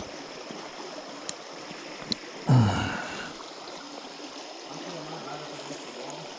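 Shallow creek water running steadily. About two and a half seconds in comes one short, loud voice sound that falls in pitch, and there are a couple of faint clicks.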